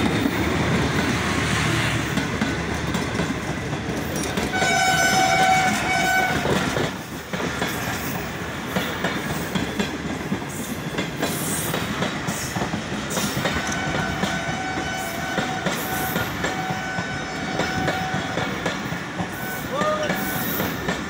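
Pakistan Railways HGMU-30 diesel-electric locomotive running through, then its passenger coaches rolling past with a steady rumble of wheels on rail. A train horn sounds for about two seconds, about five seconds in, and more faintly again for a few seconds after the middle.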